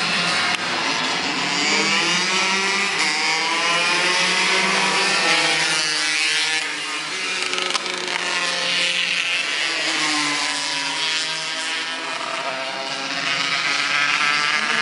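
Racing go-kart engines at high revs as karts lap the circuit, their pitch repeatedly rising and falling as they pass and work through the corners.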